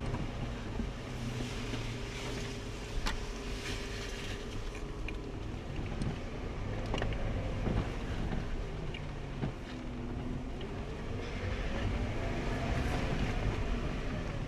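Off-road Jeep on 37-inch tires crawling up a rough dirt trail: a steady low engine drone, with the engine note rising and then falling again near the end. A few short knocks and clicks from the rocky ground and the suspension.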